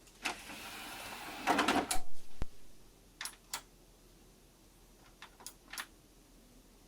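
A short rattling whirr lasting about a second and a half, then a few sharp mechanical clicks in two small groups.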